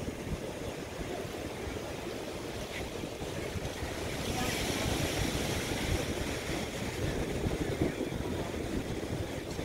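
Ocean surf washing steadily, with wind buffeting the microphone; a broader hiss of water swells up about four seconds in and eases off after a couple of seconds.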